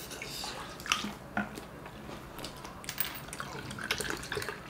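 Soju poured into a glass of beer near the end, amid scattered light clicks of chopsticks and a spoon against the wok and dishes, and some chewing.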